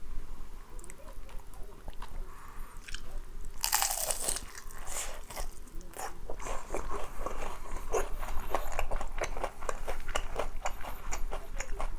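A person bites into crispy boneless fried chicken with one loud crunch about three and a half seconds in, then chews it with rapid crunching, several crunches a second.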